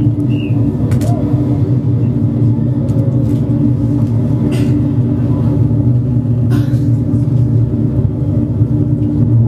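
Loud, steady low droning hum with a few faint clicks and knocks over it.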